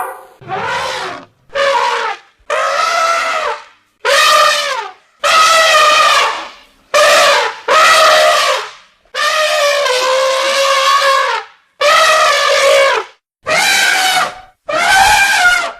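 Elephant trumpeting in a run of about eleven brassy calls, each roughly a second long, with short pauses between them.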